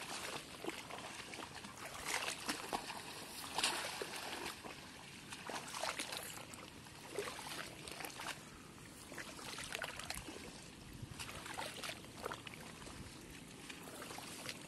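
Shallow water splashing and trickling irregularly, with many small sharp splashes, stirred by wading and by hands groping inside a bamboo polo fish trap.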